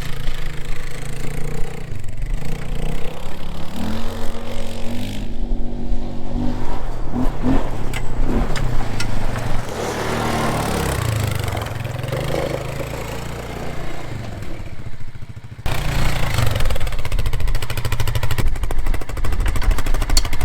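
Quad bike (ATV) engine running, its pitch rising and falling with the throttle, cut off suddenly about three-quarters of the way through and then running again.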